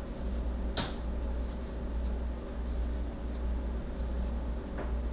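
Crochet hook and yarn faintly rustling as a row of chain stitches is worked, with a couple of light clicks, over a steady low hum.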